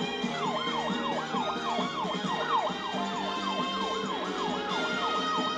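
Police siren in a fast yelp, its pitch sweeping up and down about three times a second.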